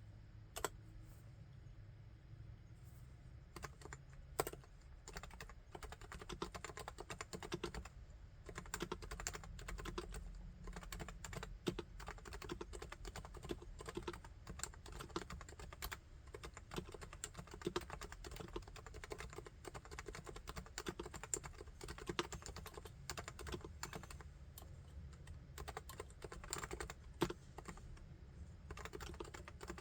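Typing on a Topre Realforce R3 keyboard with its Topre electro-capacitive switches. A few scattered keystrokes come first, then steady continuous typing from about six seconds in, with an occasional louder stroke.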